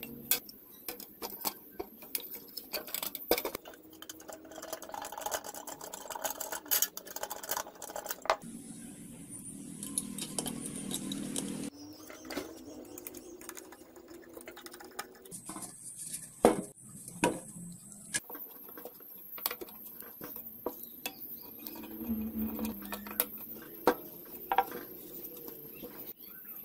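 Irregular clicks, knocks and scrapes of a rice cooker being reassembled by hand: its aluminium heating plate and white plastic body bump and rub together, and a screwdriver works at screws in the plastic housing.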